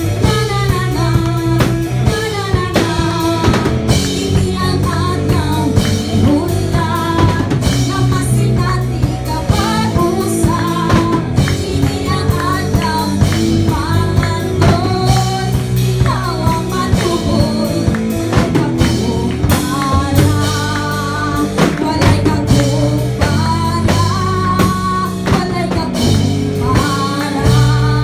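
A woman singing a worship song into a handheld microphone over amplified instrumental accompaniment with a steady beat.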